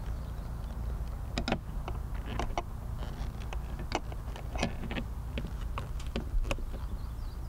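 Small screwdriver and hands working a cable grommet into place on a camera bracket: scattered, irregular sharp clicks and taps of metal on plastic, over a steady low hum.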